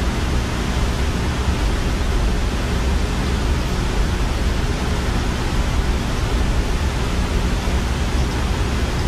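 Steady rushing hiss with a low rumble underneath, unchanging throughout: the water circulation of a saltwater aquarium.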